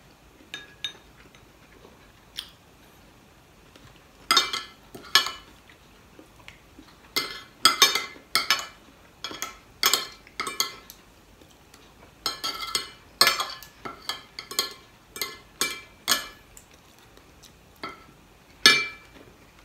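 Metal spoon and fork clinking and scraping against a ceramic plate as food is scooped up, in an irregular string of sharp clinks with a short ring; the loudest clink comes near the end.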